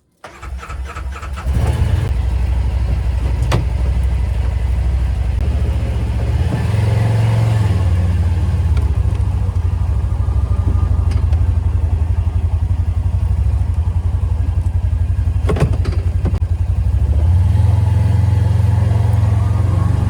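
An engine starts and runs steadily, its pitch shifting a couple of times, with a few sharp knocks.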